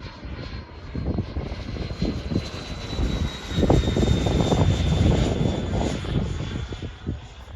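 Electric ducted-fan whine of an HSD F-86 Sabre RC jet with a 120 mm fan in flight: a thin, high, steady whine that sinks slightly in pitch, over gusts of wind buffeting the microphone.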